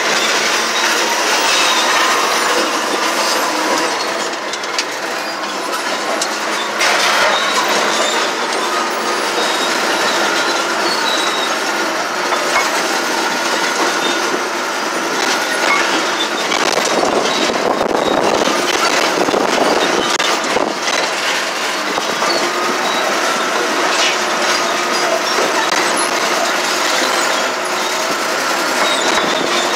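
Caterpillar D9R crawler bulldozer working, its steel tracks clanking and grinding over a steady engine noise, with a wavering high squeal running through. The clatter grows rougher for a few seconds just past the middle.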